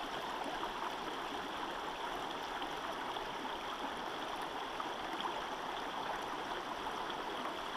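Shallow river water running over a rocky riffle: a steady rush of flowing water.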